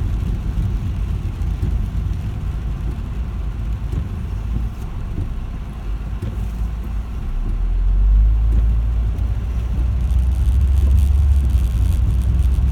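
Car driving, a steady low road and engine rumble that grows louder and heavier about seven seconds in, as the car picks up speed.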